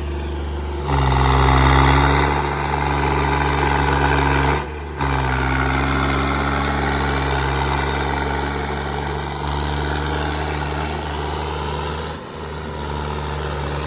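Tractor diesel engine running steadily, getting louder about a second in, with a brief drop just before five seconds and another dip near the end.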